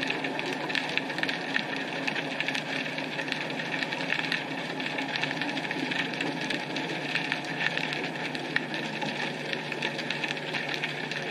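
Underwater ambience picked up by a camera on the seabed: a steady hiss thick with fine, fast crackling, over a faint low hum.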